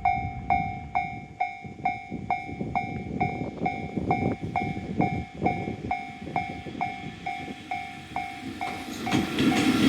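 Japanese level-crossing warning bell ringing, an electronic ding about twice a second. About 9 s in, the noise of the approaching freight train swells up under it.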